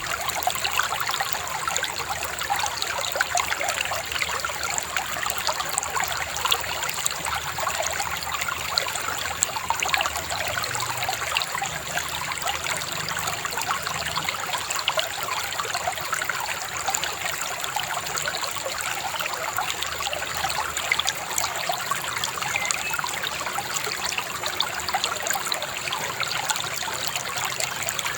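Shallow river babbling and trickling over stones, a steady splashing flow with no pauses.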